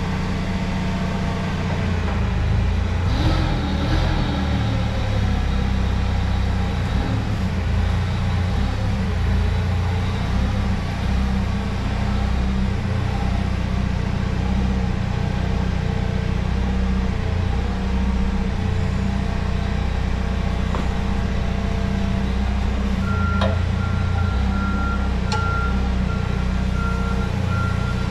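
A truck's engine running steadily with a low drone, and near the end a backup alarm starts beeping.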